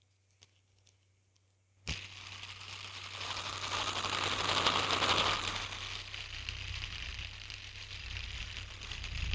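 Two faint clicks, then about two seconds in a hand spinner is set spinning: a sudden start into a dense whirring rattle of very fast ticks, loudest around the middle, still spinning near the end.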